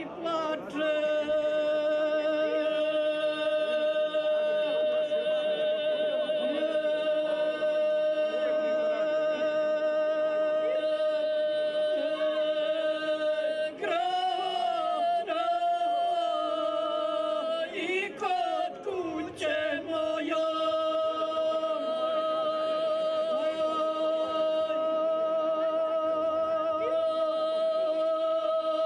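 Two women singing unaccompanied in the traditional Serbian izvika style, holding long wavering notes. About halfway through, the held note breaks into short sliding phrases, then the long held notes resume.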